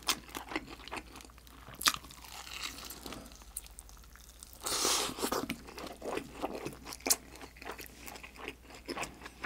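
Close-miked biting and chewing of a crisp, pan-browned dumpling: sharp crunches and wet mouth clicks, with a longer, louder crunch about five seconds in.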